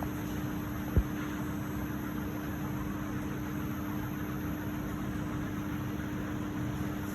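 CNC cutting machine running: a steady hiss with a constant hum, and a single low thump about a second in.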